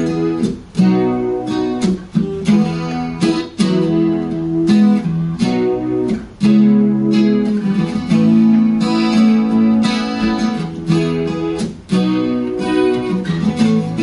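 Solo acoustic guitar playing an instrumental piece, chords strummed and picked and left to ring, with a few brief breaks between phrases.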